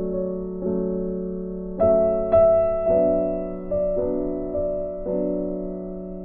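Background music on piano or electric piano: sustained chords, a new one struck about once a second and fading until the next, with a brighter higher note entering about two seconds in.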